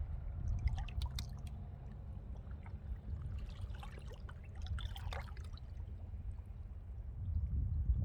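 Seawater lapping and trickling at the shore, with small drips and splashes about a second in and again in the middle. Under it runs a steady low rumble of wind on the microphone.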